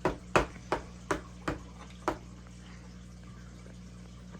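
A small mallet tapping the parts of a wooden pocket-knife kit together, driving its pegs home: about six light, quick knocks in the first two seconds, then they stop.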